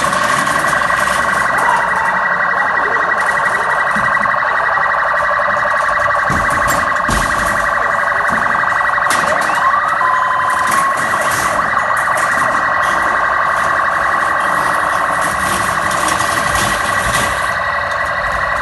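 Police vehicle's electronic siren sounding continuously in a fast, unbroken warble.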